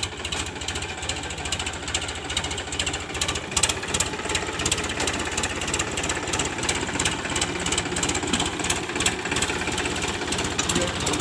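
Powertrac Euro 50 tractor's diesel engine running, with a rapid, even metallic clatter throughout. The owner puts the tractor's loud noise down to the brakes.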